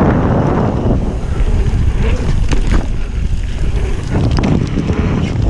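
Wind buffeting the microphone of a chest-mounted action camera on a mountain bike ridden fast down a dirt trail, with the tyres rolling on dirt. A few short knocks and rattles from the bike come through in the middle.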